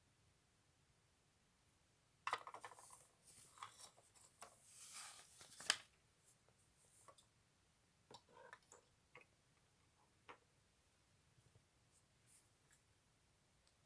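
Small plastic LEGO pieces being handled: a run of short clicks and scratchy plastic rattling about two to six seconds in, then a few scattered light clicks.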